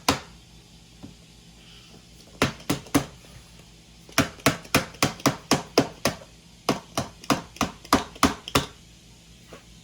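Repeated sharp knocking of a hard object striking a hard surface, about three knocks a second. There is a short run of three knocks, then two longer runs of about eight each, with brief pauses between.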